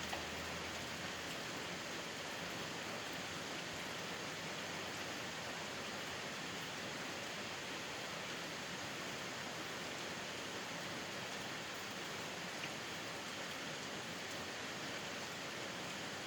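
Steady rain falling, an even hiss with no let-up, with a couple of faint ticks of single drops.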